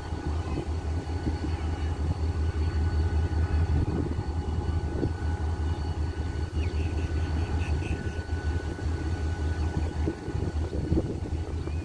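Diesel locomotive engines running: a steady low drone with a faint high whine above it, as a diesel-hauled passenger train rolls slowly in beside a standing locomotive.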